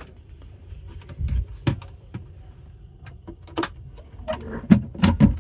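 A scattering of sharp clicks and knocks, irregularly spaced, with a cluster of the loudest near the end, over a low steady rumble.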